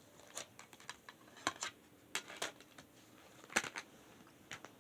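CD jewel cases being handled: a scattering of small hard plastic clicks and taps, the loudest about two thirds of the way through.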